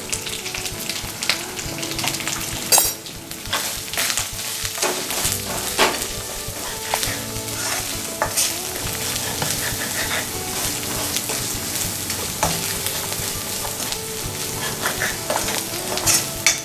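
Onion, ginger-garlic and dry spice masala sizzling in hot oil in a kadai while a steel ladle stirs it, scraping against the pan with frequent short clicks. The turmeric, chili and coriander powders are being fried in the oil.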